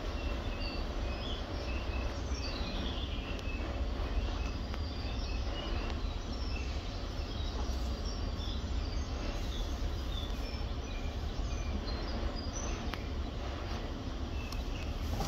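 Small birds chirping in short, repeated notes over a steady low rumble of background noise.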